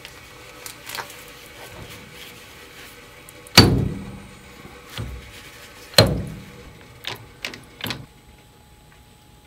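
Metal clunks from a South Bend lathe's change-gear banjo being lifted and knocked against the gear train: two loud, ringing knocks about two and a half seconds apart, then several lighter knocks. The new 19-tooth gear will not reach mesh with the larger gear below it.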